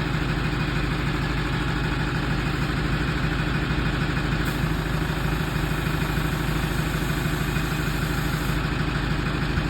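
Two-stroke chainsaw engine idling steadily, holding an even pitch with no revving.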